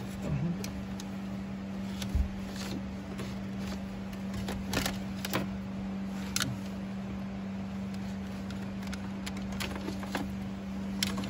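Hands working a backup-camera cable and plastic dash trim behind a pulled-out car radio: scattered light clicks and rustles over a steady low hum.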